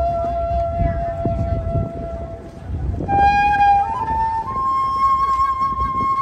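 Vietnamese transverse flute playing a folk melody in a small traditional ensemble: a long held note that fades about two seconds in, then after a short pause a new phrase climbing step by step to a held higher note, over a soft string accompaniment.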